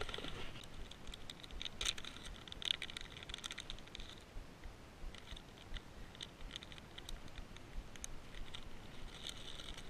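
Plastic soft-bait bags crinkling and rustling as they are handled and pulled out of a backpack. The crackling comes in short spells, busiest about two to four seconds in and again near the end.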